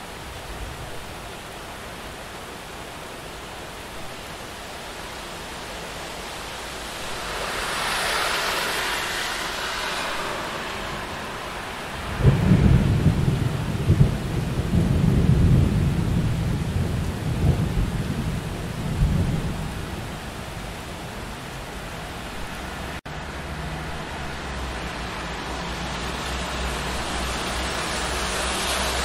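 Steady rain with a car hissing past on the wet road, swelling and fading, followed by a long rolling rumble of thunder lasting several seconds. Near the end the tyre hiss builds again.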